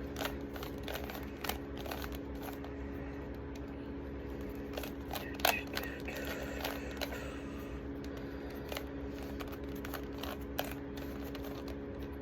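Rubik's cube being turned: irregular plastic clicks and clacks as the layers are twisted, the loudest about halfway through, over a steady background hum.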